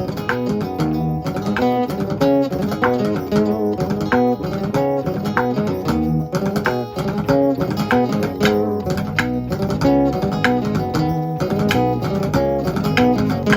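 A live band playing an instrumental passage led by guitar over bass guitar, with quick picked notes and no singing.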